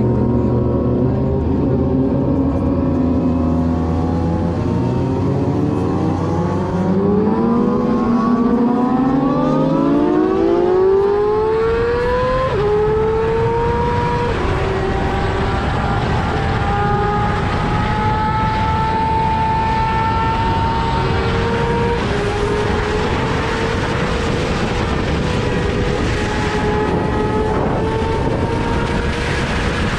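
An engine running loudly and accelerating, its pitch rising steadily for several seconds, dropping suddenly about twelve seconds in, then holding fairly steady over a heavy rushing noise.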